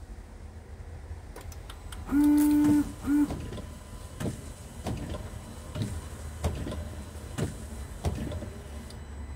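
Windscreen wiper system of a Nissan Qashqai J10 being tested after a new wiper linkage was fitted: a loud steady electric whine lasting under a second, a brief second whine, then the wiper arms sweeping with a soft knock at each stroke, roughly every three-quarters of a second.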